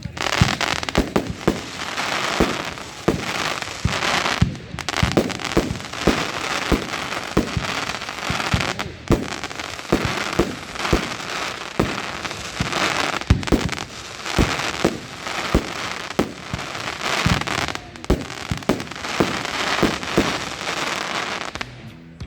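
Crackling Cartel 30 mm, 25-shot firework cake firing. There is a launch thump about once a second, each followed by a dense crackle of bursting stars, and the crackle dies away near the end.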